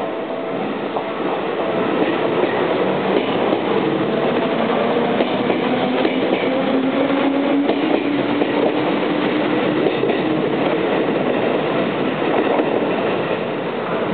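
Seibu old 101 series electric train pulling out and passing close by, its wheels clattering over the rail joints under a whine that rises slowly as it gathers speed. The sound starts to fall away at the very end as the last car leaves.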